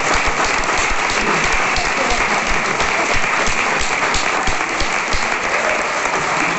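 Audience applauding steadily: dense, sustained clapping.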